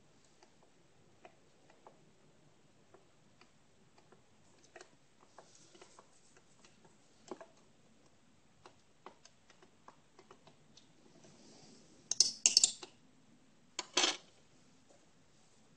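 Faint, irregular ticks of a plastic spoon against a glass jar as a gold-in-acid solution is stirred. Near the end come two loud scuffs as a hand brushes close to the microphone.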